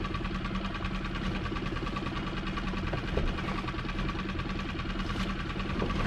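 Small fishing boat's engine idling steadily.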